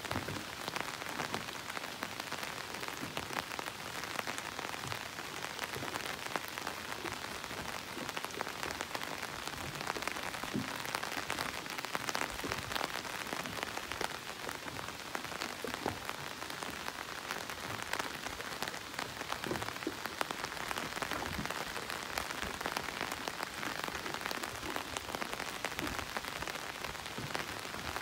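Steady rain falling, a dense, even patter of many small drops.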